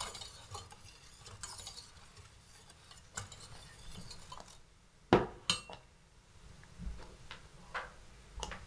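Silicone spatula stirring a thin milk and semolina mixture in a stainless steel saucepan as it heats toward the boil, with faint scraping. About five seconds in comes a sharp metal clink with a brief ring, then a few light knocks.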